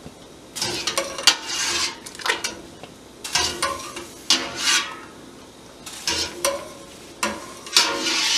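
A metal slotted spoon scooping blanched tomatoes out of a stainless steel stockpot of boiling water: repeated bursts of sloshing and draining water, about six scoops, with a sharp clink of metal on the pot about a second in.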